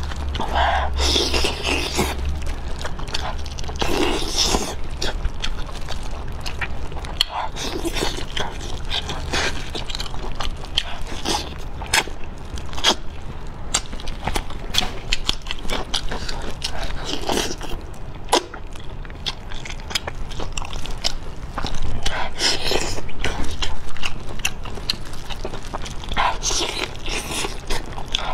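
Close-miked wet chewing and lip-smacking of sticky, gelatinous braised pig trotters, with many small sticky clicks and a louder smacking bite every few seconds.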